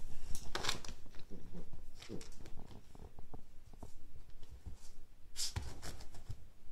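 Siberian husky puppy scuffling with a plastic frisbee on a rug: irregular scrapes, rustles and light knocks of the frisbee and paws, with a louder scrape about five and a half seconds in.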